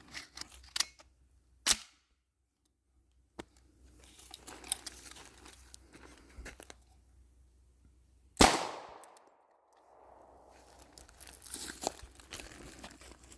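Auto-Ordnance Thompson M1 in .45 ACP being handled: small metallic clicks and a sharp clack while a jammed case is cleared. A single loud shot comes about eight seconds in and rings briefly, followed by more handling. The gun fires only one round before jamming again, biting into the casing as before.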